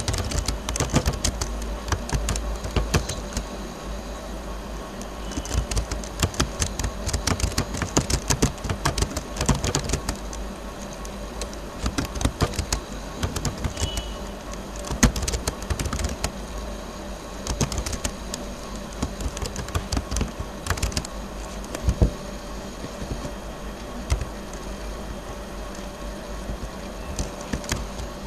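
Keystrokes on a computer keyboard in quick, irregular runs with short pauses between words and phrases, over a steady low hum.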